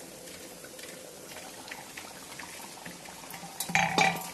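Thick taro tamarind curry simmering in an aluminium kadai, with a steady bubbling and small pops. Near the end comes a brief loud metallic clatter as the pan's aluminium lid is handled.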